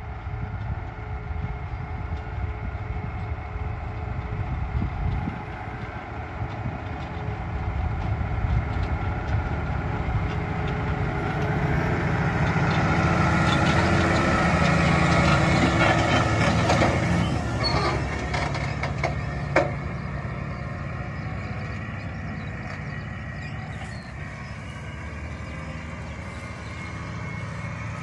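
Claas Axion 850 tractor's six-cylinder diesel engine working steadily under load as it pulls a chisel plough through stubble. It grows louder as the tractor comes close past the middle, then fades as it moves away. One sharp click sounds about two-thirds of the way through.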